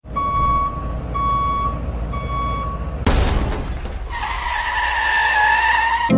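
Three electronic beeps about a second apart over a low rumble, then a sudden crash-like burst of noise about three seconds in, followed by a steady buzzing tone.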